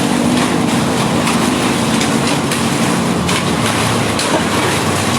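A large engine running steadily amid loud road noise, with a few scattered knocks.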